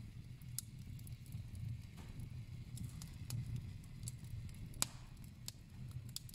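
Wood fire crackling in a fireplace: a few sharp pops over a low, steady rumble.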